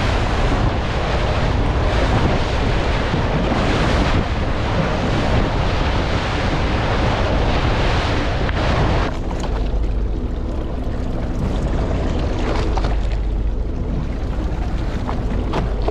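Sea water splashing and rushing against the hull of a fishing boat, with wind buffeting the microphone. About nine seconds in it drops to a quieter low rumble with a faint steady hum.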